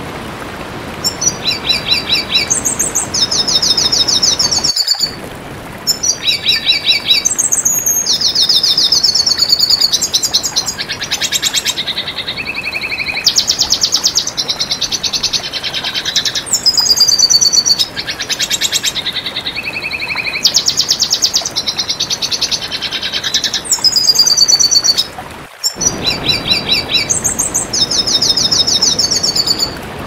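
Red siskin singing: long phrases of rapid twittering trills and buzzy, repeated high notes, with a steady hiss underneath. The sound drops out briefly twice, about 5 s and 25 s in.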